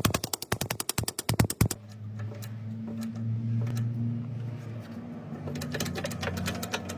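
Rapid repeated mechanical impacts, about eight a second, stopping about two seconds in. A steady low machine hum with faint ticking follows, and quick ticking builds again near the end.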